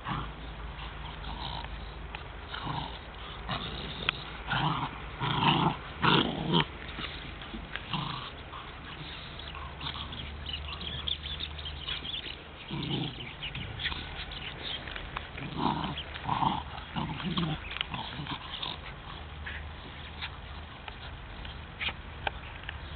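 Two dogs play-fighting, with short dog vocalisations coming in clusters: a burst about five seconds in, and more around thirteen and sixteen to seventeen seconds.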